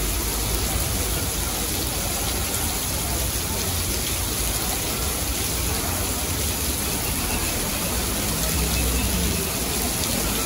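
Heavy tropical-storm rain pouring steadily onto the street, pavement and parked cars, a dense even hiss of water. Near the end a car swishes through the wet road.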